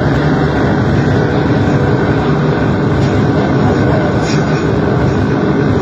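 Loud, dense, unbroken wall of distorted electronic noise from a homemade noise-music rig.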